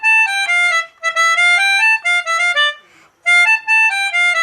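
Pianika (melodica) playing a telolet bus-horn tune in quick runs of short, stepping notes, with two brief breaks in the phrases, about a second in and near three seconds.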